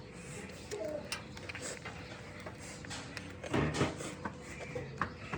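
Eating sounds during a mukbang challenge: scattered clicks and knocks from chewing and utensils, with one louder, noisier burst about three and a half seconds in.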